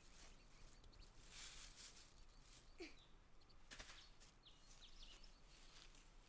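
Faint outdoor quiet with soft rustling of leaves and stones, twice, as small stones and dry litter are handled, and one short chirp near the middle.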